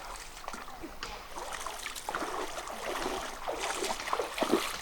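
River water splashing and trickling in small, irregular splashes and drips.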